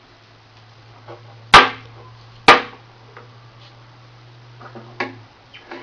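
Toy blocks knocking together: two sharp clacks about a second apart, with a few lighter clicks around them.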